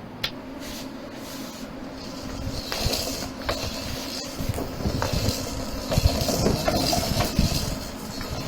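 Pull-along snail toy being pulled along, its wheels rolling and its built-in rattle clattering with many small clicks, louder from about two seconds in.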